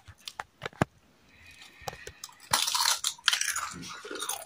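Long crisp potato-dough chips being snapped and bitten: several sharp cracks in the first second, then dense crunching and chewing from about halfway through.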